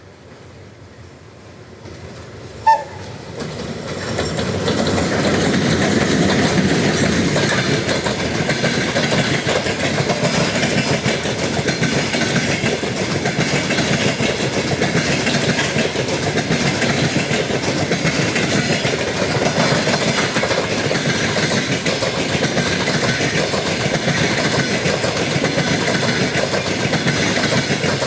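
A very short train horn toot about three seconds in. Then a long passenger train hauled by a VL10 electric locomotive passes close by, its wheels clattering steadily over the rail joints.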